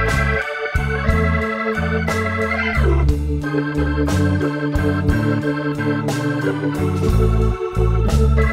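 Background instrumental music: held organ chords over a stepping bass line and a steady beat, with a sliding note that falls in pitch about two and a half seconds in.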